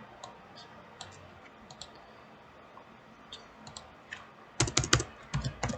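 Scattered clicks of a computer mouse and keyboard, then a quick, louder run of keyboard typing about four and a half seconds in.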